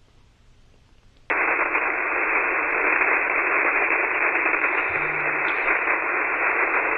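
Radio receiver static: a loud, steady hiss that cuts in suddenly about a second in, the sound of a weak station coming through, with broadcast speech about to emerge from it.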